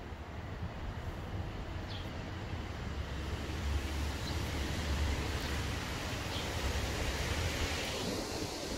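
Wind buffeting the microphone: a steady low rumble with a hiss that grows louder about three seconds in.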